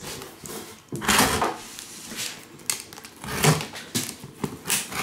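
Hand working a large cardboard box sealed with packing tape: a few rough scrapes of cardboard and tape and some dull thumps of the box as the taped seam is pushed apart.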